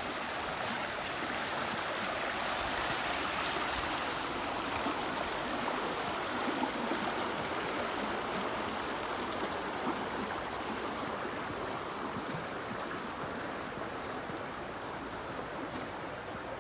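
A stream rushing and gurgling over rocks, a steady wash of water that swells a little midway and eases toward the end.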